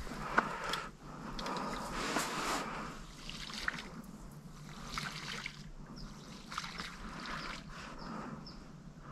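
Shallow marsh water sloshing and trickling, with scattered small clicks and knocks.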